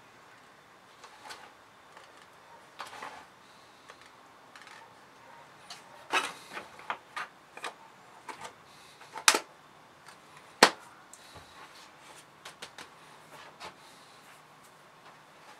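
Small plastic items being handled: light clicks and taps of a green-capped plastic container and a white plastic dish, with a quick cluster of clicks near the middle and two sharper knocks a little after it.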